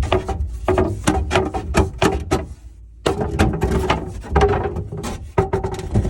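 Objects clattering and knocking as old junk is rummaged through and shifted by hand: a dense run of quick knocks and rattles, a brief lull about halfway, then more clatter that stops abruptly.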